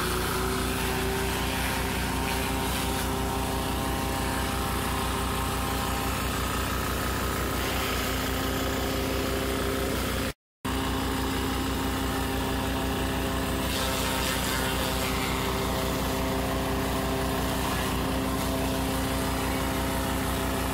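Small stationary engine running steadily, driving a forage chopper that shreds dry corn stalks fed into it. The sound cuts out for a moment about ten seconds in.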